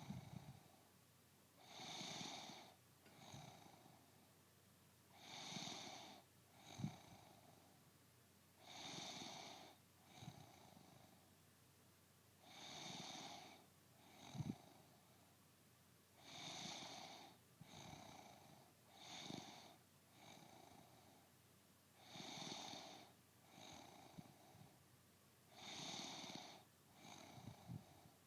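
A woman snoring in her sleep, a loud snore about every three and a half to four seconds, each followed by a shorter, softer breath. Twice, a brief sharp catch cuts into the rhythm.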